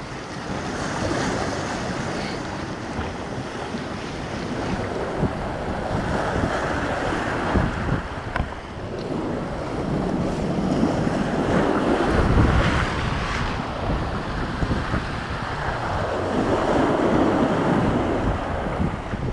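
Sea waves breaking and washing over the rocks of a jetty, with wind buffeting the microphone. The surf noise swells and ebbs every few seconds, with its loudest surge and a deep rumble about two-thirds of the way through.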